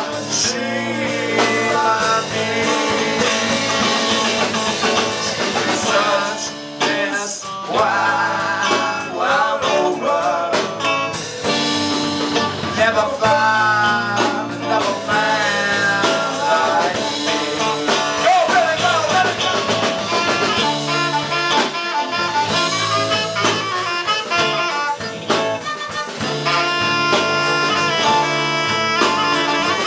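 Live band playing a bluesy, jazz-tinged number, with saxophone out front over electric guitar and drum kit.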